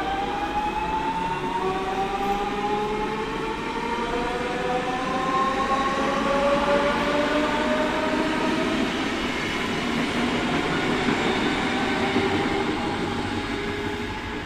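Electric train's traction inverters and motors whining, several tones rising slowly together in pitch as it accelerates, over the rumble of the train rolling.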